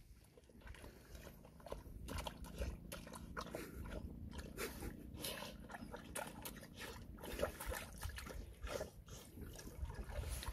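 A black Labrador and a golden retriever wading through shallow lake water: irregular splashing and sloshing with mouthing and lapping at the water, over a steady low rumble. The sound fades in over the first two seconds.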